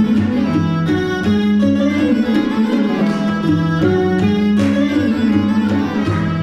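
Live trio playing a raga-style original piece: a woodwind carries a melody of held notes, over plucked guitar and tabla.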